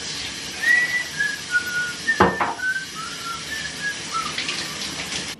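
A woman whistling a tune in a string of short single notes over the steady hiss of running shower water, with a sharp knock about two seconds in.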